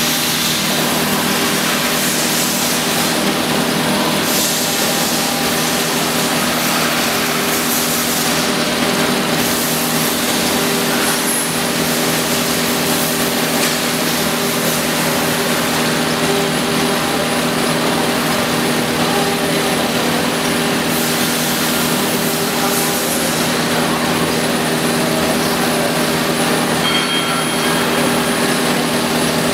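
CNC router spindle running steadily while its bit cuts into a wooden board, a constant machine hum with a cutting hiss that swells and fades as the bit works.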